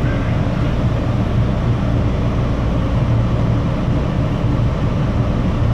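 Steady low rumble of an MBTA Red Line subway car heard from inside, running slowly along the track on its way to Braintree, held back by switching problems.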